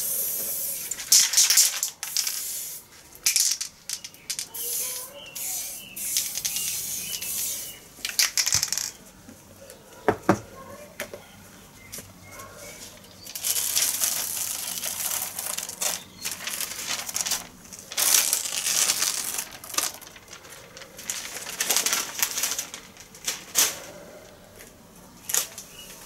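Aerosol spray paint hissing in short bursts through a paper stencil, with a single knock about ten seconds in, then the paper stencil being peeled off the board with crinkling and rustling.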